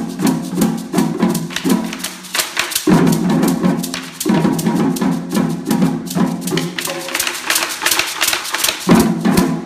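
Ensemble of djembe-style hand drums and a conga struck with drumsticks, playing a fast, dense rhythm. It has two short breaks, each followed by loud unison hits, and a loud accent near the end.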